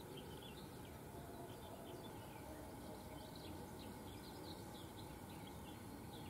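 European goldfinches twittering: many short, faint chirps scattered throughout, over a steady low background noise.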